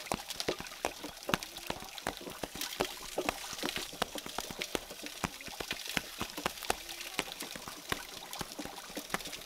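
Goldens' New Model #3 sorghum mill crushing sorghum cane stalks as it is turned by its sweep pole: a dense run of irregular cracks and pops over a steady hiss.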